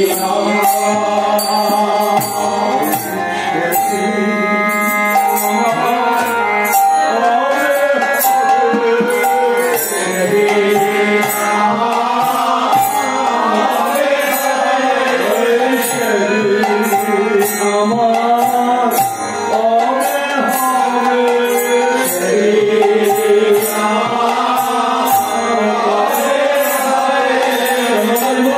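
Bengali devotional kirtan: a male lead voice sings a wavering, ornamented melody over an electronic keyboard, with a steady beat of hand cymbals and low drum strokes.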